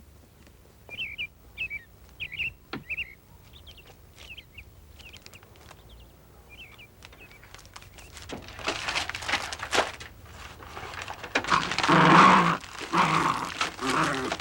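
A dog making short squeaky high-pitched whines, then a louder stretch from about eight seconds in of growling mixed with the rustling and tearing of paper as it shreds it.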